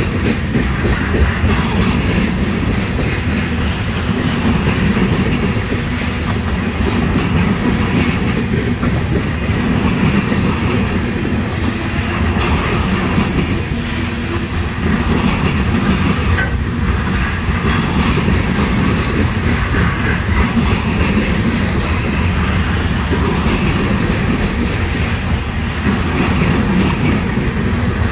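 Loaded freight cars of a trash train rolling past close by: steady, loud running noise of steel wheels on the rails, with a dense clatter of clicks from the wheels and couplings.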